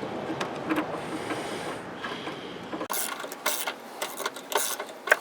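Socket ratchet clicking and metal parts knocking as the battery hold-down clamp bolt is turned in, with irregular sharp clicks from about three seconds in.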